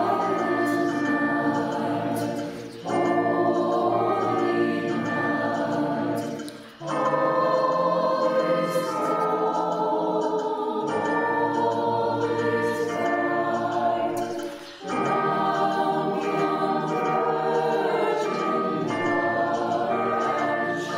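High school choir singing a holiday carol in phrases of about four seconds, with brief breaks between them. It is a virtual choir: the singers were recorded separately and their voices mixed together.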